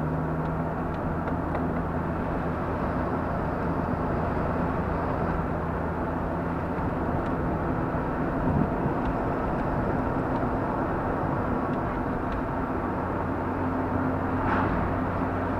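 Car engine hum and tyre noise heard from inside the cabin, steady while driving, with one short knock a little over halfway through.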